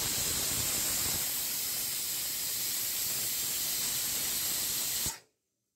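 Pressure cooker whistle venting steam with a loud, steady hiss: the cooker has come up to pressure. It cuts off suddenly about five seconds in.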